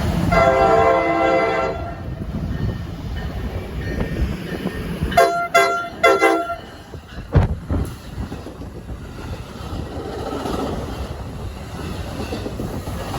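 NJ Transit train horn over the rumble of passing trains: one chord blast of about a second and a half near the start, then three short toots around the middle. A single thump comes shortly after the toots.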